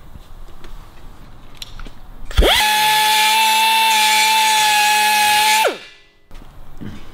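Dremel rotary tool spinning up about two seconds in, running at a steady high whine against an aluminium dashboard panel for about three seconds, then winding down with falling pitch.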